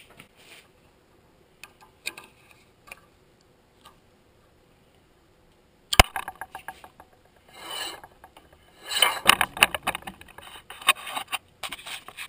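Handling noise: a few faint clicks, then a sharp click about six seconds in followed by a run of rubbing and scraping.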